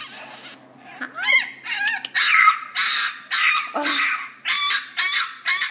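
Six-week-old French bulldog puppies yapping: a quick run of about eight sharp, high yaps, starting about a second in.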